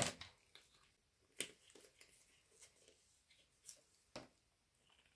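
A sharp knock right at the start, then a few faint scattered clicks and taps as small containers and tools are handled on a tabletop.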